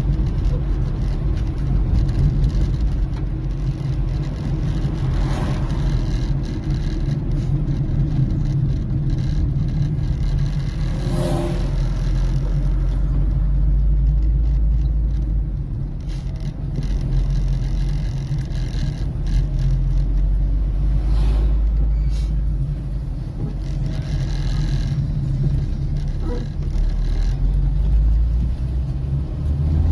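Car driving on the road: a steady low engine and road rumble, with a few short louder noises along the way.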